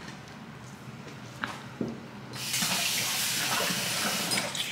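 A kitchen tap is turned on and water runs in a steady rush for about two seconds, then shuts off near the end. A couple of light knocks come just before it.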